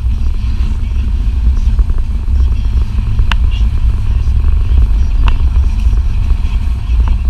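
Steady low rumble of a car driving, with a couple of short sharp clicks about three and five seconds in.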